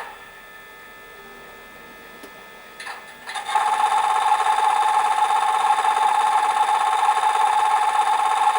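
ESU LokSound 4 sound decoder in a Piko H0 model of a class 150 electric locomotive, switching on its engine sound through the model's small speaker. There is a click, then a faint hum, and about three seconds in a loud steady running hum of several held tones starts up.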